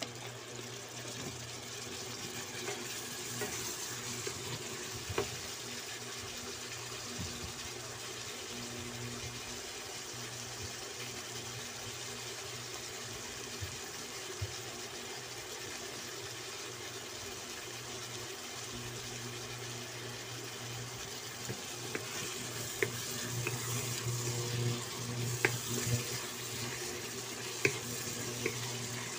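Chicken pieces frying in oil in a nonstick wok, a steady sizzle. In the last third a wooden spatula stirs them, with scattered scraping clicks against the pan.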